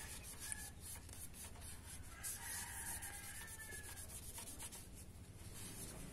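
Faint rubbing and scratching of a cotton pad wiping the copper base of a CPU cooler heatsink, cleaning off old thermal paste.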